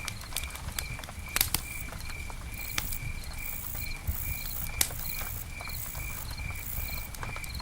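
Campfire crackling, with sharp pops of burning wood, the loudest about a second and a half and five seconds in. Under it an insect chirps steadily, about two and a half chirps a second, and a higher buzzing comes and goes.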